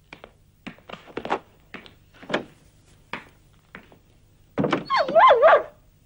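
A run of soft knocks and scrapes, then, about five seconds in, a German shepherd whining loudly at a closed door in one drawn-out whine whose pitch wavers up and down.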